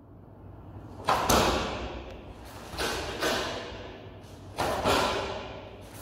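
Karate gi snapping sharply with each block of the Heian Sandan kata: three pairs of quick cracks, each pair ringing out in the hall's echo.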